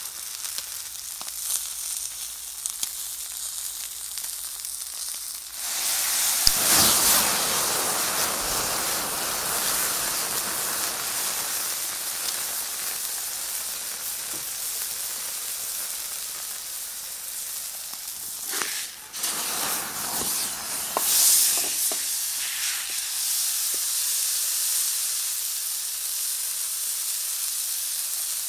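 Ribeye steak sizzling on a hot flat steel griddle, a steady frying hiss. About six seconds in the sizzle jumps sharply louder, then eases, with two more brief surges near the twenty-second mark.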